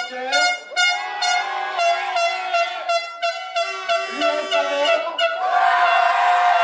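Supporters' horns blown in short repeated toots, about two or three a second. About five seconds in they swell into a continuous din of many horns together.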